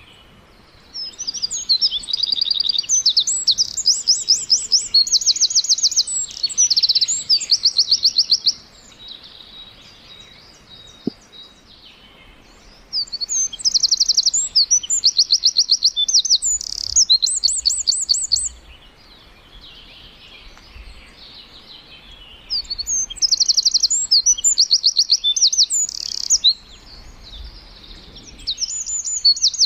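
A bird singing in four bouts of rapid, high-pitched trills, each a few seconds long, with short gaps between them.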